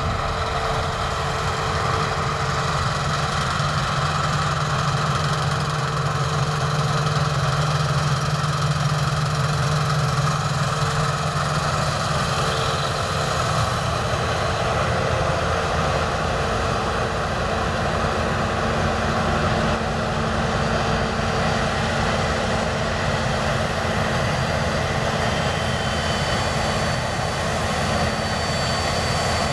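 Claas Lexion 770 combine harvester running while it harvests: a steady engine drone mixed with the whir of its threshing machinery. A strong low hum eases about halfway through as the combine moves past.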